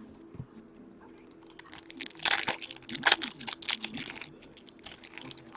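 Foil card-pack wrappers crinkling and tearing as hobby packs are handled and opened. There is a burst of crackly rustling from about two seconds in, loudest around two and a half to three seconds, before it dies away.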